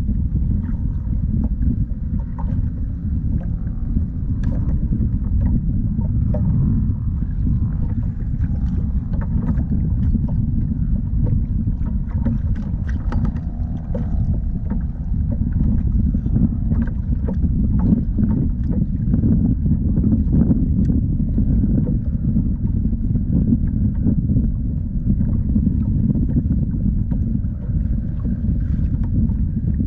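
Wind buffeting the microphone as a steady low rumble, with faint scattered ticks and small water slaps from a kayak on open sea.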